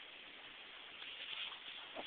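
Snoring: one soft, hissy breath about a second in, over a steady background hiss.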